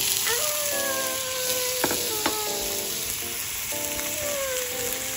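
Tomato wedges sizzling steadily in hot oil in a small nonstick frying pan, with a couple of light clicks near the middle.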